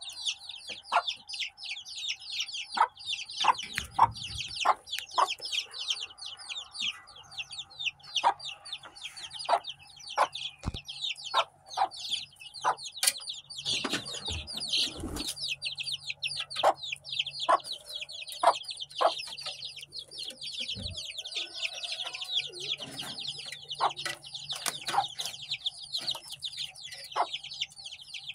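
A brood of ISA Brown and white layer chicks peeping constantly, many short high falling cheeps overlapping. An adult Golden Polish chicken gives short clucks now and then, and there are a few low thumps.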